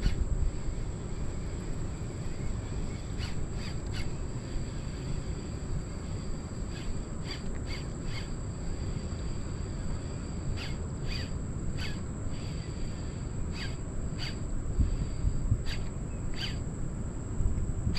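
Riverside ambience: a steady low rumble with short, high bird chirps scattered irregularly across it.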